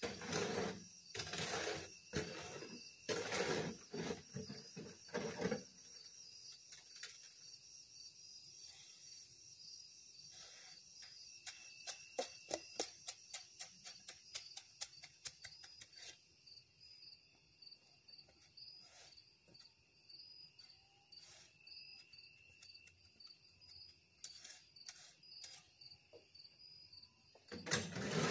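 A hoe dragged through concrete in a wheelbarrow: several scraping strokes about a second apart at the start and again near the end. In between comes a run of quick light clicks, about four a second, with crickets chirping steadily throughout.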